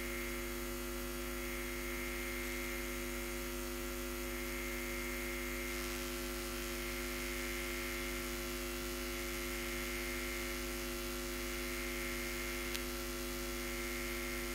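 Steady electrical mains hum in the microphone or sound-system feed: a constant stack of even buzzing tones over a faint hiss. One faint click comes near the end.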